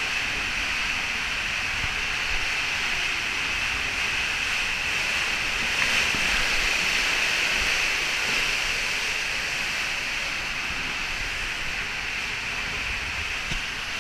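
Water rushing through an enclosed tube water slide as an inflatable ring rides down it: a steady rushing hiss.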